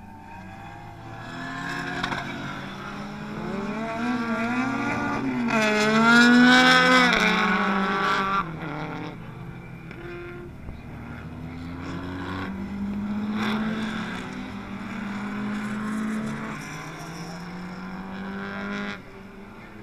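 Racing car engines revving hard and climbing through the gears, the pitch rising and falling with each shift. They are loudest about six to seven seconds in and drop away abruptly about eight seconds in. A second stretch of engine sound follows and cuts off suddenly near the end.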